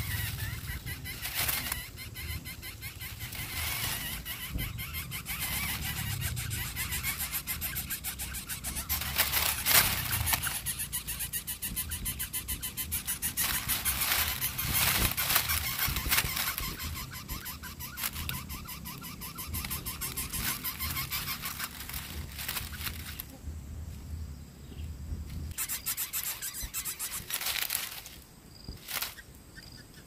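Lesser coucal chicks calling and stirring in their dry-grass nest, begging for food, with a steady low rumble underneath that stops near the end.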